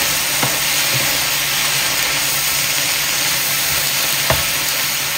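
Pork and mushroom stir-fry sizzling steadily in a large nonstick pan as a slotted spatula stirs and tosses it. There are a couple of light clicks of the spatula against the pan, the sharpest about four seconds in.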